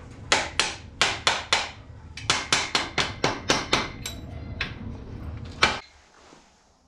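Hammer blows on metal at the top end of a Norton Commando 750 engine: about fourteen sharp strikes in quick runs of several blows, during work to get the cylinder head off. A low steady hum underneath cuts out near the end.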